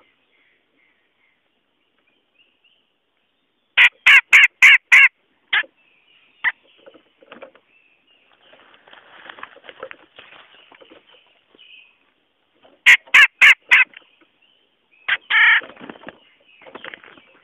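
Cucak jenggot bulbul calling. A quick run of about five loud, harsh notes comes a few seconds in, followed by single notes and softer chattering, then a second run of loud notes and more harsh calls near the end.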